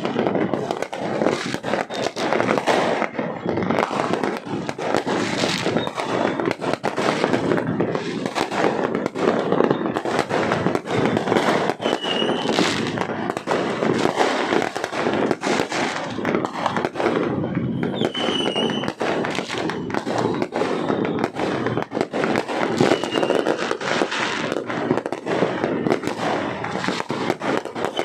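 Fireworks going off continuously, a dense stream of bangs and crackles, with a few brief high whistles.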